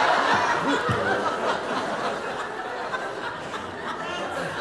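Audience laughter, loud at first and dying down gradually.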